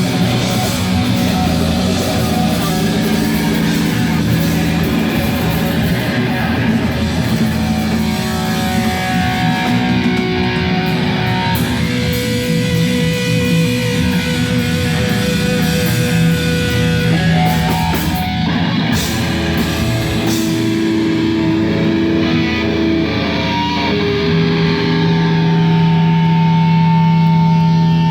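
Live heavy rock band playing loud, with electric guitars to the fore, closing on a long held chord in the last few seconds.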